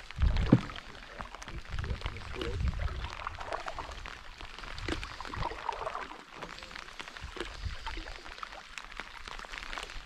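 Wooden canoe paddle strokes pulling through lake water, a splashy gurgling surge every two to three seconds as the blade digs in and swirls out. There is a sharp knock about half a second in.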